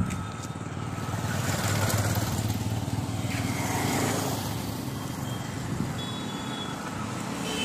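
A motor vehicle running steadily: a low engine hum under a wide rushing noise.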